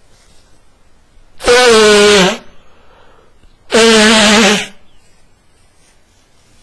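Two loud, honking nose blows, each about a second long, with a horn-like pitch that dips slightly at the end of each: a man clearing a nose stuffed up by a heavy cold.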